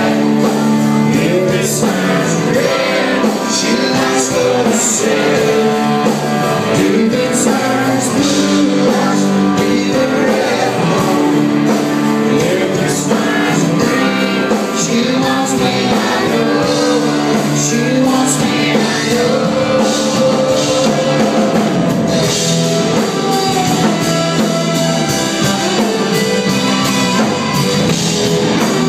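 Live country-rock band music: a man singing lead over acoustic and electric guitars and bass guitar, loud and steady.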